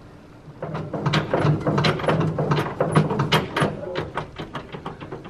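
Small wooden display shelves rattling and knocking as a hand lever rocks an earthquake-shaking demonstration rig, a rapid irregular clatter that starts about half a second in and dies down near the end.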